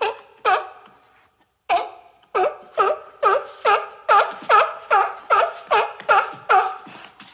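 Seal barking: a couple of single short barks, then a rapid, even series of barks at about two and a half a second.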